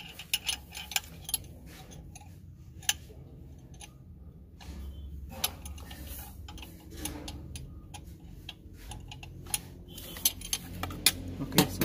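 A hand wrench clicking and tapping against metal as it loosens the nuts holding a fan clutch: irregular sharp clicks, a quick run of them at the start and another cluster near the end.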